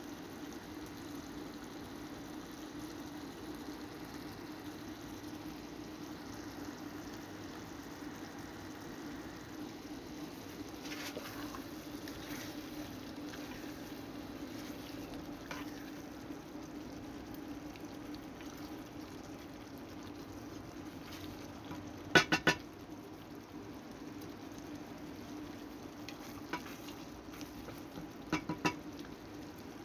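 Chicken heart and gizzard stew simmering in a pot with a steady bubbling hiss while a wooden spoon stirs it, scraping and clicking against the pot. A quick cluster of three knocks a little past the middle is the loudest sound, with a few more clicks near the end.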